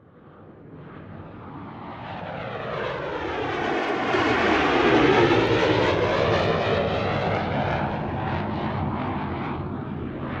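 Paramotor's two-stroke engine and caged propeller at full power on a takeoff run, passing close by: it grows louder to a peak about five seconds in, then slowly fades as the wing lifts away.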